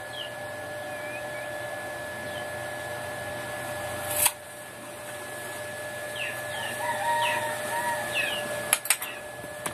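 Short, high chirps from birds, each falling in pitch, scattered throughout and busier in the second half, over a steady hum. A sharp knock comes about four seconds in and two more near the end.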